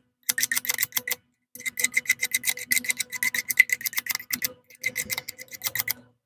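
Razor blade scraping back and forth across the carburetor mounting flange of a Tecumseh engine's intake manifold, cleaning the mating surface smooth for a new gasket. Quick scraping strokes, about seven a second, in runs broken by short pauses about a second in and at about four and a half seconds.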